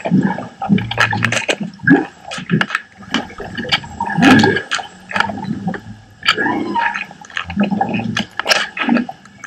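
Underwater sound picked up by a GoPro lowered into the sea: irregular clicks and knocks with gurgling water, and a few short low tones here and there.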